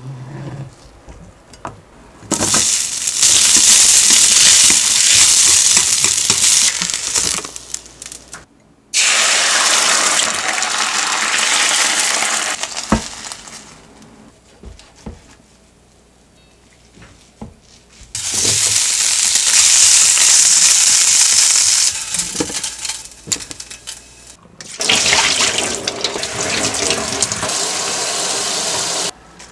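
Several long spells of a steady rushing hiss, each starting and stopping abruptly. The last is a kitchen tap running over arugula in a stainless mesh strainer. A few sharp knocks fall in the quieter gaps between.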